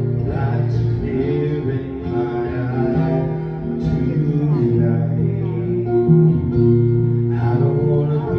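Live acoustic guitar music over a steady low bass line, with a voice singing at a few moments.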